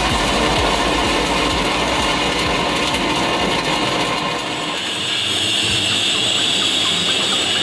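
Stick (SMAW) welding arc crackling and sizzling steadily as the electrode burns along a vertical test plate. About five seconds in the crackle gives way to music.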